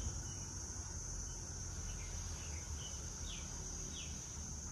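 Steady high-pitched drone of insects in the garden, with about five short falling bird chirps between two and four seconds in, over a low background rumble.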